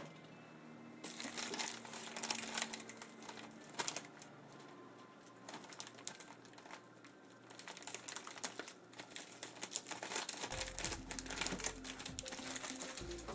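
Plastic and cardboard packaging being handled and taped up with packing tape: irregular crinkling, rustling and clicking. A low hum comes in about ten seconds in.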